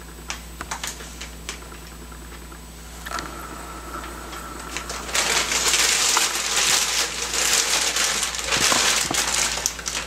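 A few light clicks and taps, then from about five seconds in a bag of shotshell wads rustles and crinkles steadily as it is handled.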